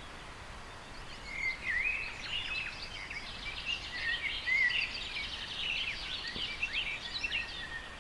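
Several songbirds chirping and singing in quick, overlapping calls that grow busier about a second in, over a light steady hiss.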